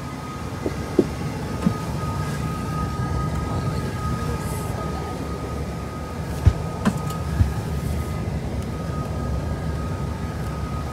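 Steady cabin noise of a parked airliner, a low rumble with a thin steady whine from the aircraft's ground power and air systems. A few sharp knocks come about a second in and again around two-thirds of the way through.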